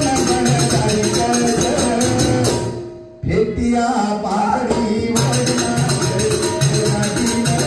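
Banjara bhajan music: singing over a steady jingling percussion beat. It fades out about two and a half seconds in, drops briefly, then comes back.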